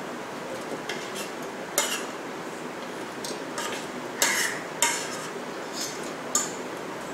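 A metal fork scraping chopped dates off a plate into a stainless steel mixer-grinder jar and tapping against the plate and the jar's rim. The clinks and scrapes come irregularly, about nine in all, with the sharpest ones about two seconds in and around four to five seconds in.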